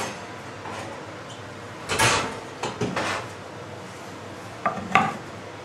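Kitchen oven door being shut with a thud about two seconds in, with a few lighter knocks after. Near the end, two sharp, briefly ringing clinks of a metal utensil against a baking dish.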